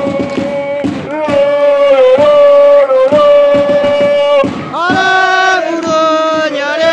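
A group of football supporters singing a victory chant together in long, held notes. It gets louder about a second in, and a new phrase starts a little before the end.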